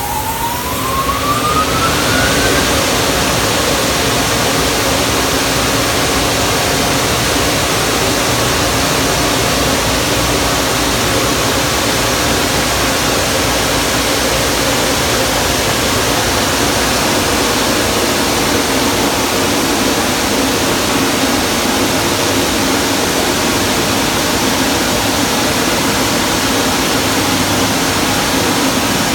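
Car wash dryer blowers spinning up, their whine rising over the first couple of seconds, then running with a steady loud rush of air.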